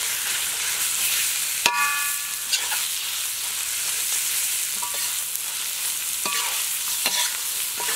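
Ground pork and chopped mushrooms sizzling in a hot metal wok as a metal spoon stirs them. The spoon clinks against the wok several times, each clink ringing briefly; the loudest comes nearly two seconds in.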